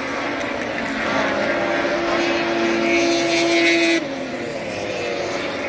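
Racing snowmobile engines running at high revs on the track, a steady whine that builds and then drops away suddenly about four seconds in.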